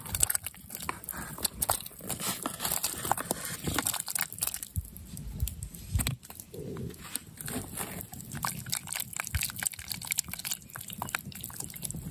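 Chunks of sliced sausage sliding off a camp bowl and dropping into a pot of broth: an irregular run of small plops, splashes and clinks.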